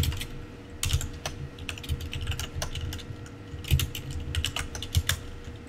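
Typing on a computer keyboard: irregular runs of key clicks with short pauses between them, as a command is typed.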